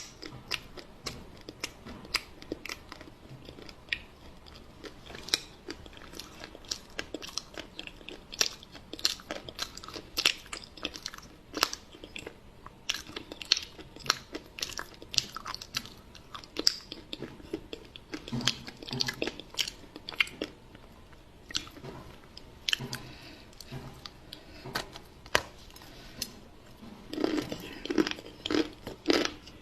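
Close-up mouth sounds of a person eating chocolate pie: irregular crunchy bites and chewing, with a denser run of crunches near the end.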